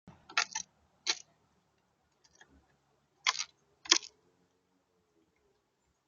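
A bird at a seed feeder making a few sharp clicks and taps, a quick cluster about half a second in and single ones at about one, three and four seconds.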